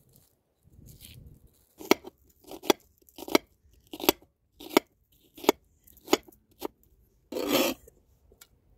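A knife chopping food on a cutting board: about eight sharp chops, roughly one every 0.7 s, then a longer rasping noise near the end.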